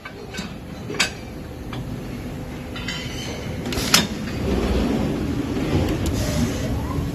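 Machine-shop noise at a CNC lathe: a steady mechanical rumble with sharp metallic clicks as the chainsaw crankcase is clamped into the chuck, the loudest about four seconds in. Near the end the lathe's sliding enclosure door closes and a short rising whine follows.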